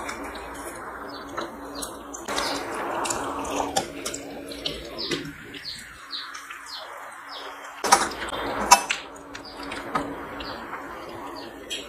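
Close-miked eating: chewing and wet mouth smacks while fingers mix rice on a steel plate, with two sharper clicks about eight seconds in.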